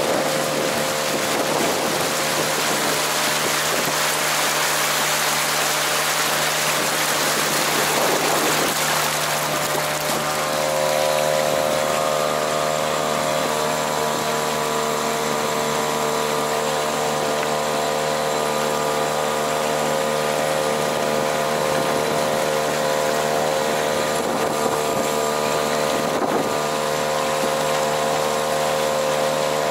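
Mercury 3.3 M two-stroke outboard motor running at a steady speed with the boat under way, a new motor being run in. Wind on the microphone adds a rush that swells briefly about eight to ten seconds in.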